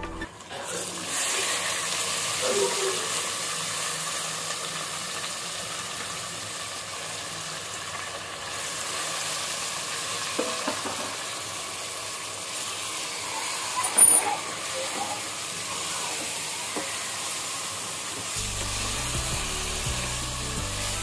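Minced mutton sizzling and crackling in hot oil, starting about a second in as it hits the pan, while a silicone spatula stirs and scrapes it around the pressure cooker. A single sharp knock about 14 s in is the loudest sound. Soft background music comes back near the end.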